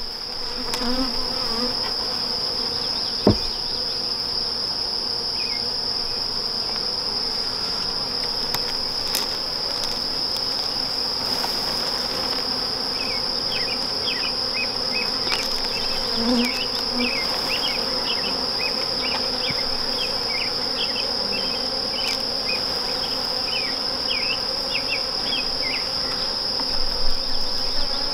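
Honeybees humming around an opened hive box, under a steady high-pitched whine. A single sharp knock, likely the metal hive tool on the wooden box, sounds about three seconds in.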